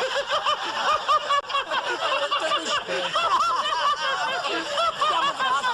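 Many people laughing together, as from a sitcom laugh track, with a man laughing loudly among them.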